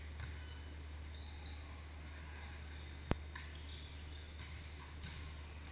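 A volleyball smacking once, sharp and loud, about three seconds in: a hand hitting the ball or the ball striking the court floor. Under it runs the steady low hum of a large gym hall.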